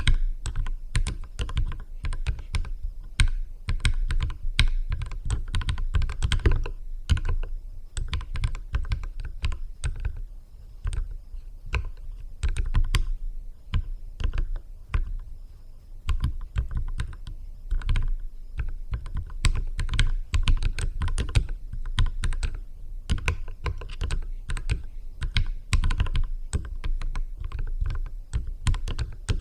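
Continuous typing on a Keychron K6 mechanical keyboard with lubricated Keychron Mechanical Red linear switches: a steady stream of dull key strokes, slowing briefly about midway before picking up again.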